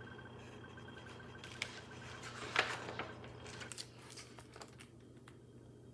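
A page of a picture book being turned by hand: a short paper swish with a few light clicks and taps, loudest about two and a half seconds in, over a faint low hum.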